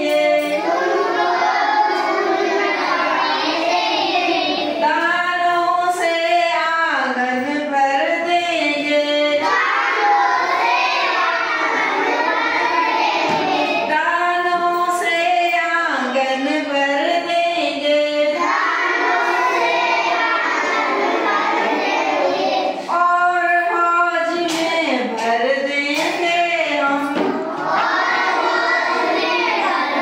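A class of young children singing a Hindi children's poem together in unison, phrase after phrase, with brief breaks between lines.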